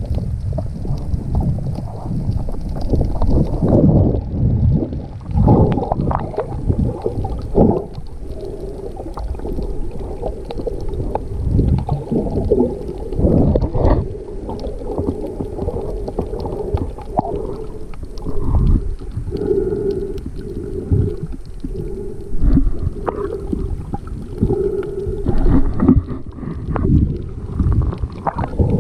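Muffled underwater water noise from swimming while snorkelling: uneven low sloshing and gurgling surges. In the second half a low hum comes and goes.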